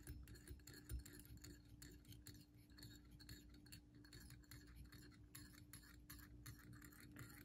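Near silence, with faint irregular ticks and rubbing of thread being wrapped from a bobbin onto a fly hook's shank, over a faint steady low hum.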